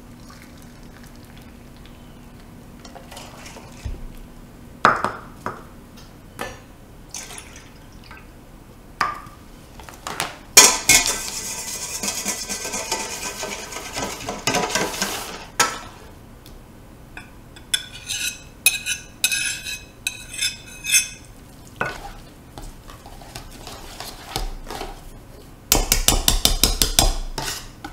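A wire whisk and utensils working in a stainless steel mixing bowl: scattered clinks and knocks, then several seconds of rustling as a pouch of instant mashed potato flakes is poured in while the whisk stirs. Rhythmic whisk scraping follows, and there is a short burst of fast whisking strokes against the bowl near the end as the mash thickens.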